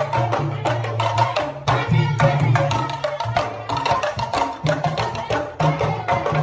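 Yoruba bàtá drum music: fast, dense drum strokes over a steady low tone.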